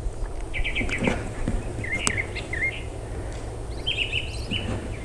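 Small birds chirping: a quick trill about half a second in, a few chirps around two seconds, and another trill near four seconds, over a steady low rumble and a few soft knocks.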